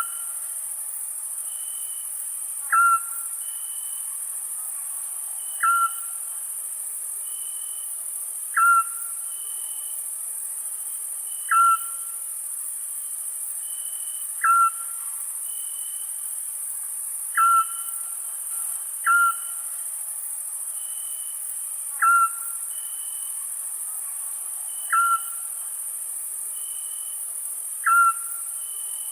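Scops owl giving a short hoot about every three seconds, each call dipping quickly in pitch, over a steady high chorus of crickets.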